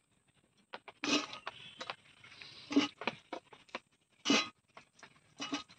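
Whole peeled potatoes dropped one at a time into hot mustard oil in a steel kadai, each landing with a short splash and sizzle, about four times, with a few lighter clicks between.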